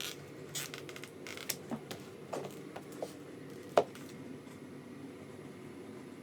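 Close handling noise: soft rustles and a few light clicks, with one sharper click a little before the four-second mark.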